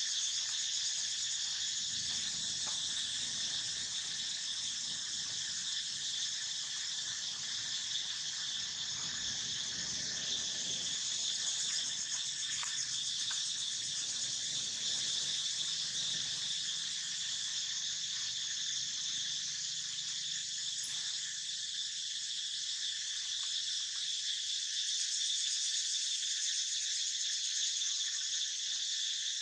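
Steady, high-pitched chorus of insects, an even unbroken drone.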